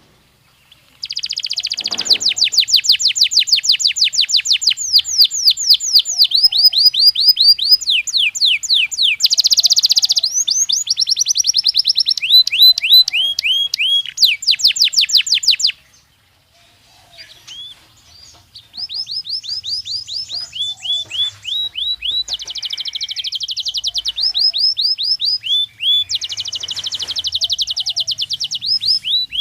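Belgian canary singing: long runs of fast repeated trills and falling notes, high and loud, in phrases that change every second or two. The song starts about a second in, breaks off for a few seconds around the middle, then starts again.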